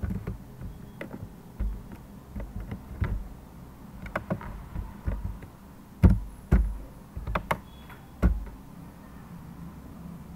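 Irregular clicks and taps of a computer keyboard and mouse during code editing. A few louder knocks with a dull thud come about six seconds in and again about two seconds later.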